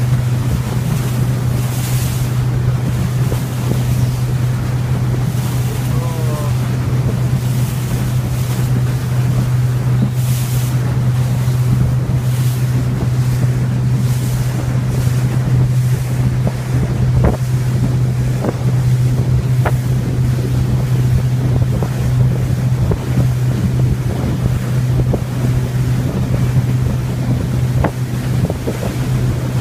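Boat engine running steadily with a constant low drone as the boat crosses the water, with water rushing past and wind gusting on the microphone.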